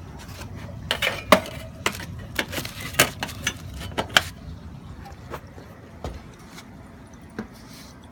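A quick run of sharp clinks and knocks from hard objects being handled, then a few scattered ones.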